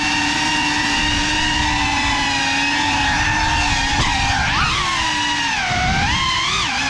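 GEPRC Cinelog 35 cinewhoop drone's motors and ducted propellers whining steadily in flight. The pitch dips and rises with throttle changes from about four seconds in.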